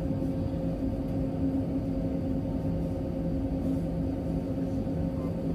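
Steady low hum of supermarket freezer cabinets, with a few steady tones over a low rumble.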